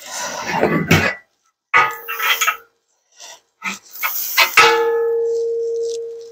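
Black steel bed-frame rails scraping and clanking as they are handled. There are two knocks, the second the louder, and it leaves a clear metallic ringing tone that lingers and fades over about two seconds.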